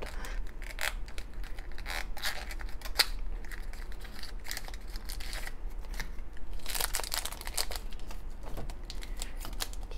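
A miniature cardboard toy box being opened by hand and a crinkly plastic wrapper pulled out and handled, with irregular crinkling and crackling and a denser crackle about seven seconds in.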